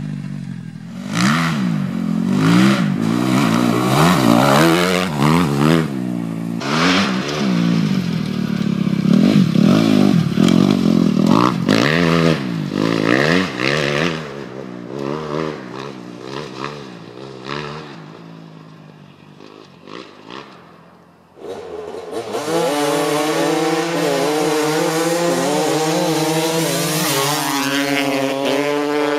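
Motocross dirt bike engine revving hard, its pitch climbing and dropping over and over as the throttle is opened and shut, then fading away. After a sudden cut, two dirt bikes come on at a steady high-revving pitch that creeps upward.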